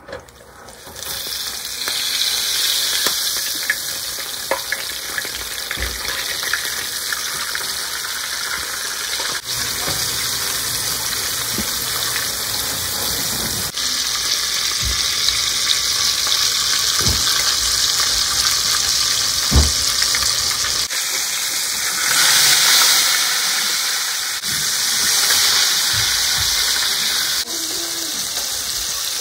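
Flour-dredged whole tilapia frying in hot oil in a frying pan: a steady sizzle that starts about a second in as the fish goes into the oil, with a few light knocks.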